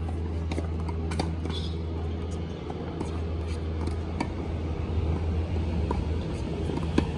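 Tennis balls being struck by racquets and bouncing on a hard court in a practice rally: sharp pops at irregular intervals, the loudest near the end, over a steady low hum.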